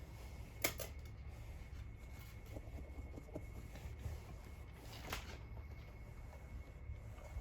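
Cats pawing and scratching at a carpet: faint rustling with two sharp scratches, one about a second in and another about five seconds in.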